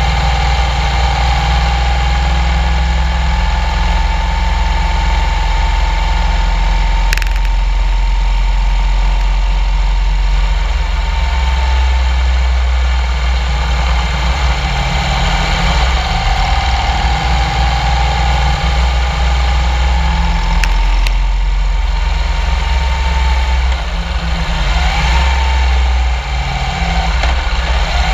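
Motorcycle cruising at steady road speed: the engine's even whine over a heavy low rumble of wind on the microphone. Near the end the engine note drops as the bike slows into a bend.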